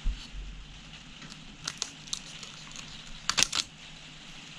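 Handling noise of a pair of scissors and a 35 mm film cassette being picked up on a cutting mat. A dull thump right at the start, then scattered sharp clicks and rustles, the loudest cluster about three and a half seconds in.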